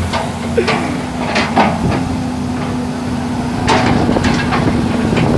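Volvo EC210B excavator's diesel engine running steadily, with a series of sharp knocks and clanks, several close together about four seconds in.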